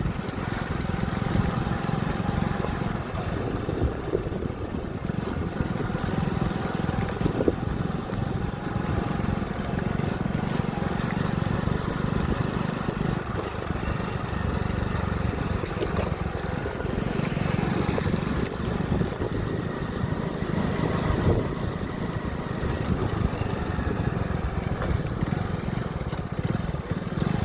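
Motorcycle engine running while riding, a steady low rumble that holds even through the whole stretch.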